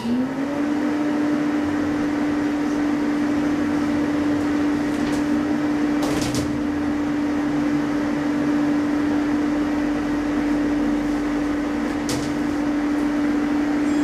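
Hydraulic elevator's pump motor starting up, its hum rising briefly in pitch and then running steady as it raises the car, with a couple of short clicks from the car about six and twelve seconds in.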